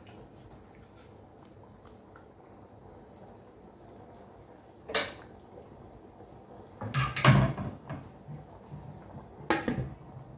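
Kitchen handling sounds: a wooden spoon set down on the counter with a sharp clack about halfway, then a louder clatter as a glass pot lid is picked up, and a couple of clinks near the end as the lid is set on the cooking pot.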